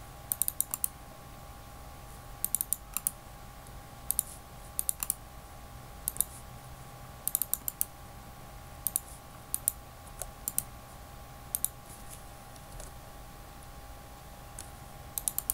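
Typing on a computer keyboard in short bursts of a few keystrokes, with a pause of about a second between bursts, as a code is entered group by group.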